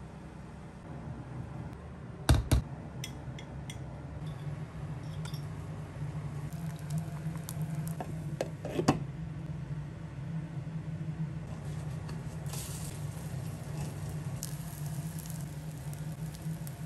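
Egg-soaked toast cooking in a nonstick frying pan, with a low steady hum underneath. Sharp clatters of the pan and its lid come about two and a half and nine seconds in, and a soft sizzle of frying rises from about twelve seconds.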